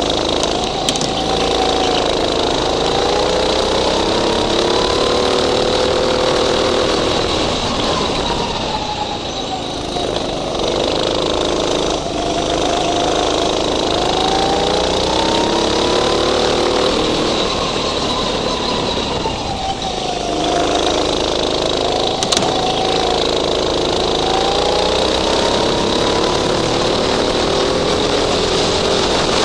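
Go-kart engine heard from on board, its pitch climbing along each straight and dropping off for the corners, three times over, with a steady high whine above it.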